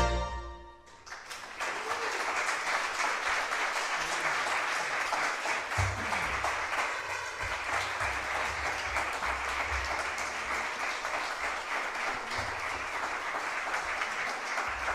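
A chamber ensemble of bandoneón, piano, violin, double bass and electric guitar strikes a final accented chord that rings and dies away within about a second. Then an audience breaks into steady applause.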